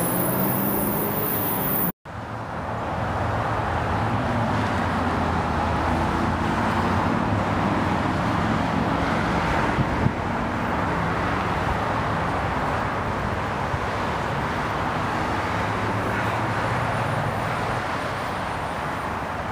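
A train running past a station platform: a steady rushing noise with a low hum underneath, after a brief cut-out about two seconds in.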